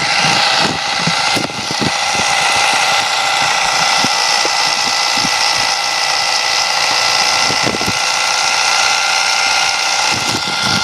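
Toy RC car's small electric motor and gearbox whining at a steady pitch with scattered crackles, the wheels spinning while the car sits stuck in mud.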